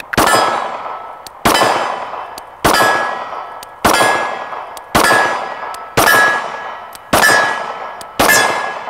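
Glock 48 9mm pistol fired slowly and steadily: eight shots about a second apart, each sharp report followed by a ringing decay.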